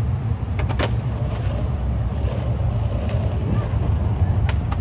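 Low, steady rumble of downtown street noise, with one sharp click about a second in.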